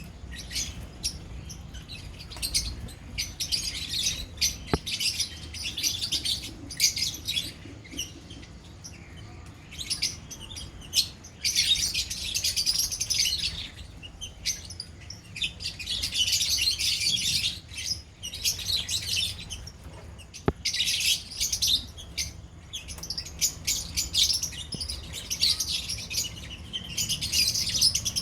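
A colony of lovebirds chattering, many high-pitched chirps overlapping in bursts that swell and fade every few seconds.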